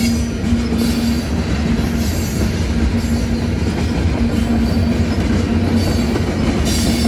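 Union Pacific freight train of covered hopper cars rolling steadily through a grade crossing: a loud, continuous rumble of steel wheels on rail, with clickety-clack from the rail joints.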